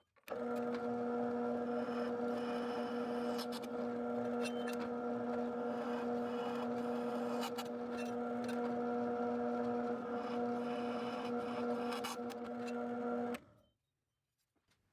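Benchtop drill press motor running with a steady hum, its bit spinning free with no work under it. It starts just after the beginning and shuts off about a second before the end.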